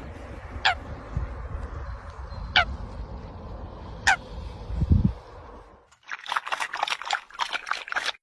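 A bird giving three short, sharp calls that fall steeply in pitch, over a low rumble. About six seconds in, this cuts to a rapid run of crackling clicks.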